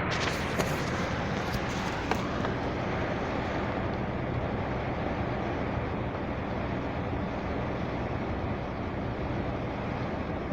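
Steady rain falling, an even hiss with a few sharp drip taps in the first two seconds.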